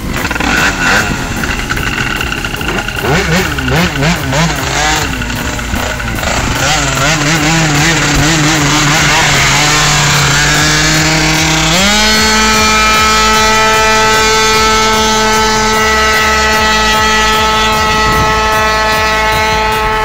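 Tuned two-stroke scooter engine revved in short, uneven blips, then winding up in pitch and, about twelve seconds in, jumping to a steady high-revving whine that is held to the end.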